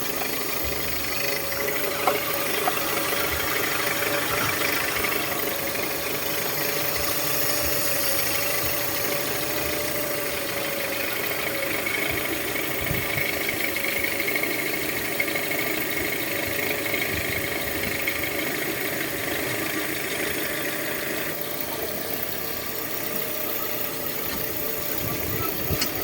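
Toyota Corolla 2E inline-four engine idling steadily, running now that its hard-starting problem has been worked around. A faint high whine drops out near the end.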